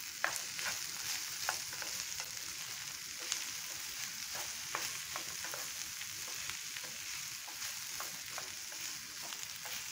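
Sliced okra with peanuts and onions sizzling steadily in hot oil in a frying pan, stirred with a wooden spatula that gives scattered light taps and scrapes against the pan.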